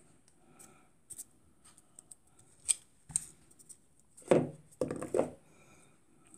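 Hands handling crochet work on a tabletop: a few light clicks and taps, then louder rubbing and rustling about four seconds in as the crocheted strip with its plastic stitch markers is picked up.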